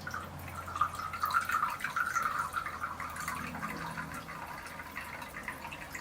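Water trickling and splashing in a bamboo shishi-odoshi fountain, a steady running-water sound that starts suddenly.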